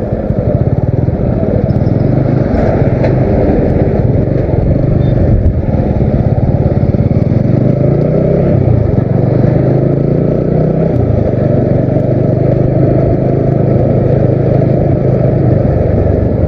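Motorcycle engine running steadily while riding, with heavy rushing noise over the microphone. The engine pitch climbs from about eight seconds in and drops back suddenly near eleven seconds.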